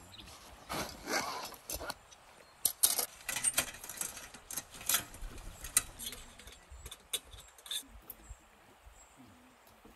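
Metal panels of a flat-pack camp braai clinking, scraping and clattering as they are slotted together, a run of sharp metallic clicks that thins out near the end.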